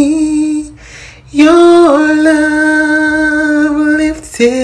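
A woman singing a gospel worship song, holding long notes, with a short breath pause about a second in and a new note starting near the end.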